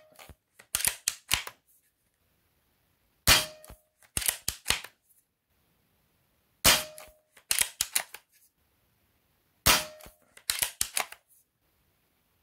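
A Diana Mauser K98 .22 pre-charged pneumatic air rifle fired three times, about three seconds apart, each shot a sharp crack. After each shot comes a quick run of three or four clicks as the bolt is worked to feed the next pellet from the magazine.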